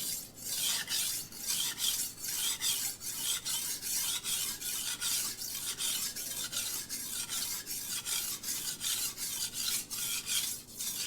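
Steel knife blade stroked rapidly back and forth across a coarse King 300 grit whetstone, an even rasping scrape about three strokes a second. The strokes are raising a burr along the edge.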